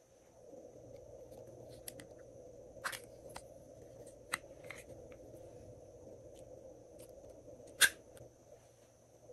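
Sparse small plastic clicks and taps from handling a little topping container over a glass dish of slime, about half a dozen, with one sharper click near the end.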